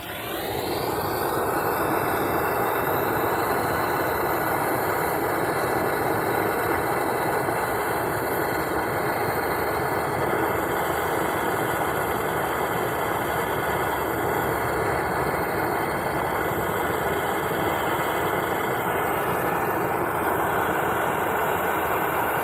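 Cutting torch flame burning with a steady rushing noise as it heats a rusted wheel lug nut, swelling up in the first second and then holding even. The heat expands the nut to break its rust bond.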